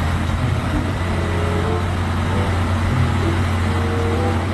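A motor vehicle's engine running steadily with a low drone and road noise.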